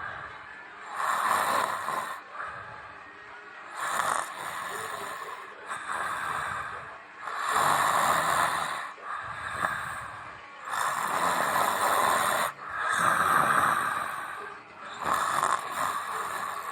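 A person snoring, about six snores spaced two to four seconds apart.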